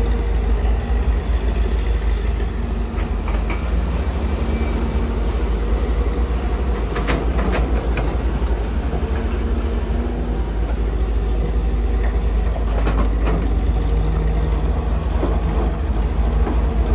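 Kobelco SK250 hydraulic excavator's diesel engine running steadily under load through a dig-and-dump cycle, with a few sharp clanks about seven to eight seconds in, as the bucket dumps into the steel dump-truck bed, and again near thirteen seconds.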